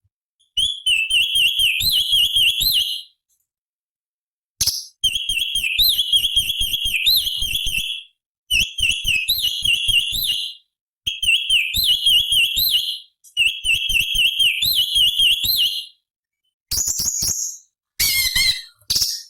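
Cucak cungkok leafbird singing: five phrases of fast, looping, whistled notes, each two to three seconds long with short pauses between, then a few shorter sharp calls and a falling note near the end.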